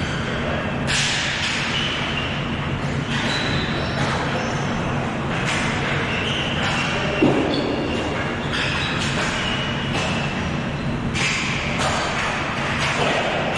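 Noise of a ball hockey game in a large hall, steady throughout, with one sharp knock about seven seconds in, the loudest sound.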